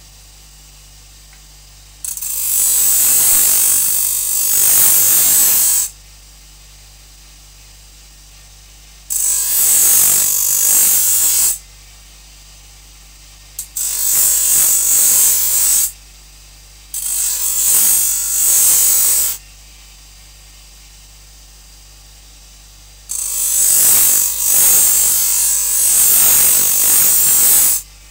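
Bench grinder running with a steady low hum while a steel knife blade is pressed against its ceramic abrasive wheel in five passes of a few seconds each, each pass a loud, high grinding hiss. The blade's edge is being ground down to sharpen the knife.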